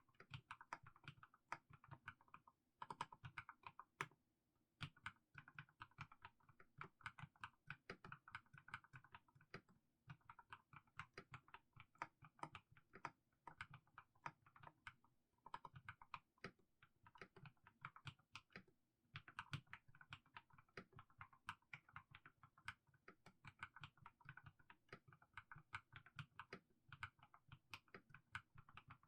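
Mechanical keyboard with fully lubed Haimu Sea Salt switches being typed at an unhurried pace, giving a stream of soft, muted 'dogak-dogak' keystrokes. The typing breaks off briefly every few seconds.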